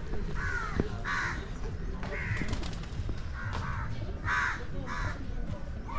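Crows cawing repeatedly, a string of short harsh caws about one a second.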